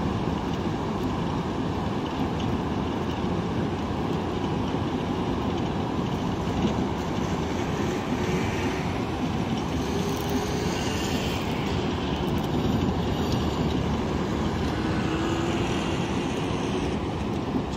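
Steady rumbling roar of ocean surf breaking along the beach, mixed with wind buffeting the microphone.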